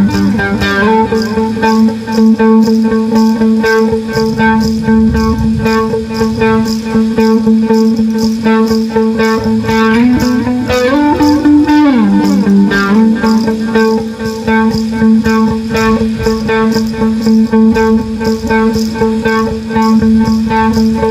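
Electric guitar playing ambient music: a steady, evenly repeating picked pattern over held low notes. The low note steps down near the start, then rises and falls back again around the middle.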